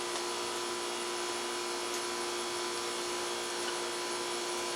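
Steady background hum with constant hiss and no distinct events.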